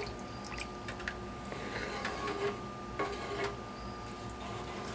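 Broth-thinned gravy being stirred in a pan: soft wet sloshing and squishing, with a few short, light clicks of the utensil against the pan.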